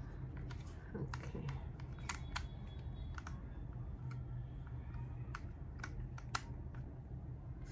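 Scattered plastic clicks and taps from handling the Feiyu Vlog Pocket 2 gimbal's folding arm and phone clamp, over a steady low hum.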